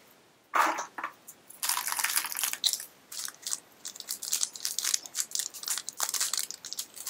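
Small blind-bag wrapper of a Disney pin crinkling and tearing as it is pulled open by hand: a run of short crackles starting about half a second in.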